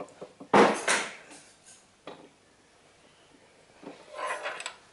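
Metal parts of a motorcycle rear suspension linkage being worked in a vise: a loud clunk and scrape about half a second in, a faint click at about two seconds and a smaller rattle near the end. This is the spacer that is stuck on its bolt being worked loose.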